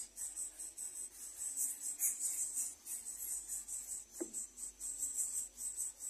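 Insects chirring steadily in a high, rapidly pulsing trill. About four seconds in there is one short note that falls steeply in pitch.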